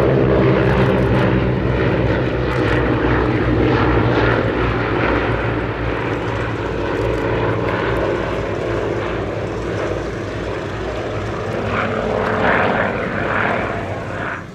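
Avro Anson C19's twin Armstrong Siddeley Cheetah radial piston engines and propellers droning steadily in flight, easing a little in the middle and swelling again near the end as the aircraft passes.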